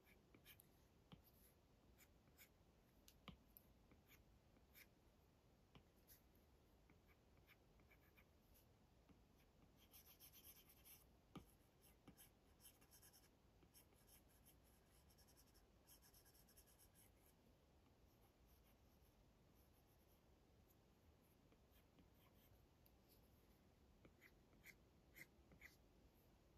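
Faint stylus nib tapping and scratching on an iPad's glass screen during sketching, with short scattered strokes. Two runs of quick back-and-forth strokes come about ten and fifteen seconds in, and a few sharper taps come near the end.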